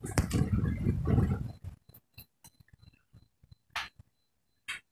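Handling noise as the phone recording is set down: a low rumble for the first second and a half. Then a few faint ticks and two sharper clicks near the end.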